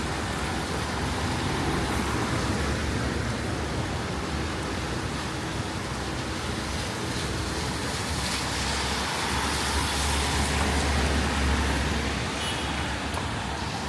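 Street traffic noise: a steady hiss with a low rumble that swells as a vehicle passes, about eight to twelve seconds in.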